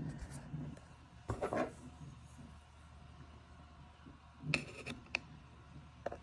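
Light clicks and taps from the opened car tape deck's metal chassis being handled, in two short clusters, one about a second in and one near the end, over a faint steady hum.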